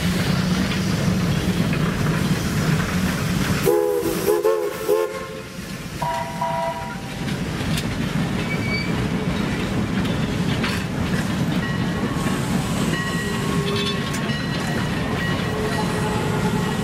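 Wooden and steel rail cars rolling past on jointed track with a steady rumble and wheel clatter. About four seconds in, the 1916 Heisler geared steam locomotive's whistle gives several short toots, then a brief blast a couple of seconds later.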